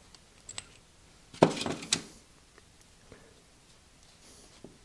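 Metal parts of a disassembled Jacobs Super Chuck handled by hand. There are a few small clicks, a short clatter about a second and a half in, and scattered light ticks after it.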